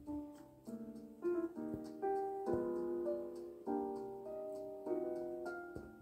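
Background piano music: a slow piece of held chords, changing every second or so.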